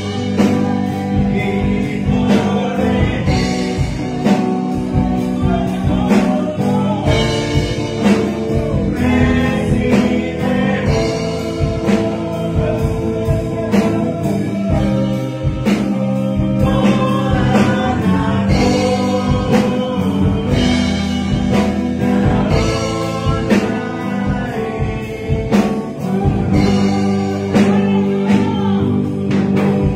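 A man singing a Spanish-language gospel worship song into a microphone over instrumental accompaniment with a steady beat.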